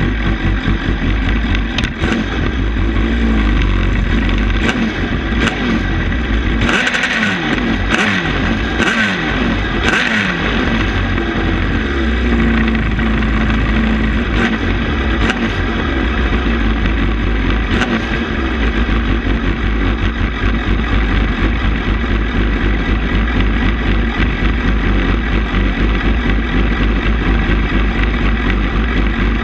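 Suzuki GSX-R750's inline-four engine running close by, just after starting. It is revved a few times between about six and eleven seconds in, rising and falling in pitch with some sharp cracks, then settles to a steady, even idle.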